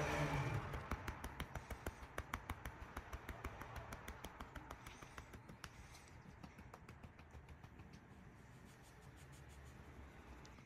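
A cat's meow trailing off at the start, then a long run of light, rapid clicks that grow fainter after about six seconds.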